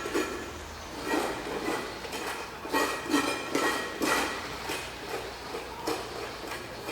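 Public square ambience with a run of short clinks and knocks, like dishes or cutlery being handled.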